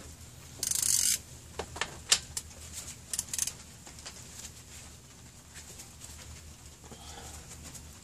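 Hand ratchet clicking in short spells, with several sharp metallic clicks, as a torqued cylinder-head bolt is turned a half turn loose as part of the head-bolt tightening sequence.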